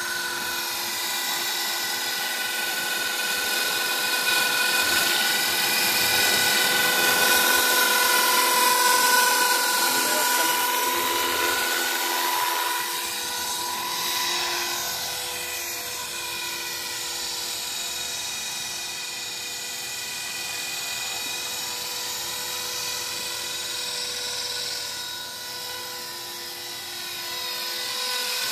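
Electric 450-size RC helicopter (HK 450 Pro TT) in flight: a steady high whine of motor and rotor blades whose pitch bends up and down as it manoeuvres. It is loudest about eight to ten seconds in.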